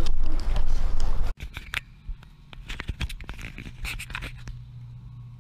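A loud low outdoor rumble that cuts off abruptly about a second in, followed by quiet rustling and scratching from a handheld camera being moved, over a faint steady low hum.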